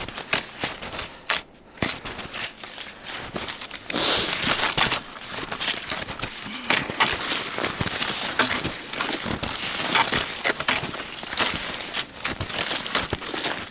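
Touring skis crunching and scraping through snow stride after stride, a dense crackle that gets louder about four seconds in.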